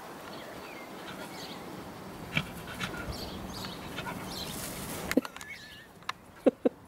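Cocker spaniel puppy panting and whimpering faintly, with small birds chirping in the background. A few short sharp sounds come near the end.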